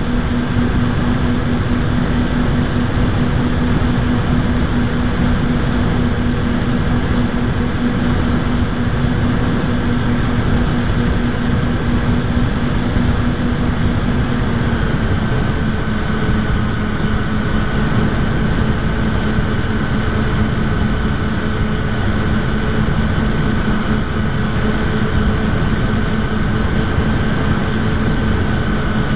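A model plane's motor and propeller hum steadily under heavy wind rush on the onboard camera's microphone, with a thin high whine above them. The hum drops a little in pitch about halfway through.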